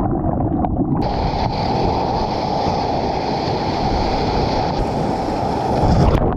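Wind rumbling against the microphone over rushing water as the board moves through the surf. It is a steady, loud, low rumble with little high end.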